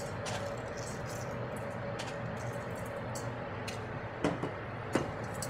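Steady background hum of a commercial kitchen with light clicks, and two short knocks near the end, as sea salt is sprinkled over lamb in a stainless steel mixing bowl.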